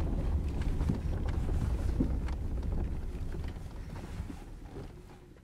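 Wind buffeting an outdoor microphone: an uneven low rumble with a few faint ticks, fading out near the end.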